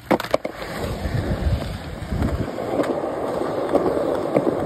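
Skateboard wheels rolling on smooth concrete, a steady rumble that builds over the first couple of seconds. A few sharp clacks come right at the start.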